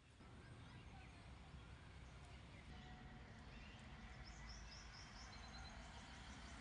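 Faint outdoor ambience: a steady low rumble, with a small bird chirping faintly in quick repeated notes from about four seconds in.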